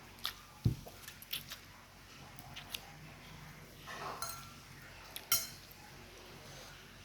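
Eating utensils clinking and tapping against a bowl or plate: a scattering of short clicks, with a dull knock under a second in and a sharper ringing clink about five seconds in.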